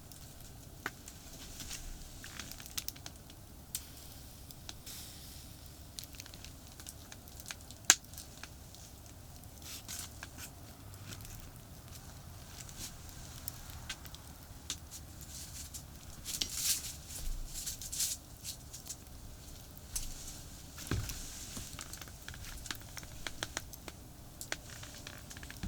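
Small crackles and pops from a charcoal campfire, with scattered rustling, crinkling and tapping from hands at work, and one sharp click about eight seconds in. A steady low rumble of distant highway traffic lies underneath.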